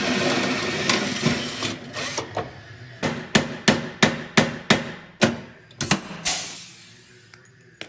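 A hammer striking repeatedly: about ten sharp blows at roughly three a second, after a couple of seconds of steady noise.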